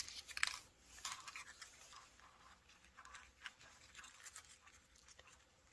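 Faint, scattered rustling and light ticks of folded pearl crinkle-paper roses and a plastic pearl bead strand being handled, loudest about the first second.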